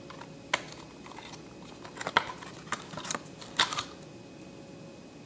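Small objects being handled off a counter, with several short, sharp clicks and taps at irregular spacing, none after about four seconds in.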